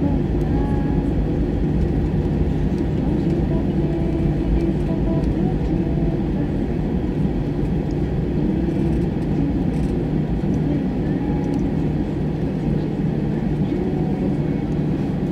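Inside the cabin of an Airbus A320 rolling down the runway after touchdown: a steady low rumble from the engines and the wheels on the runway, with a faint hum over it.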